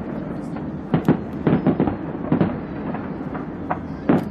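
Fireworks going off: irregular sharp bangs and crackles, several in quick succession about a second and a half in and a loud one near the end.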